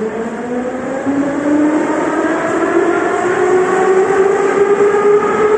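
Metro train's traction motors whining with a slowly rising pitch as the train accelerates, heard from inside the carriage over rumbling running noise; the pitch levels off near the end.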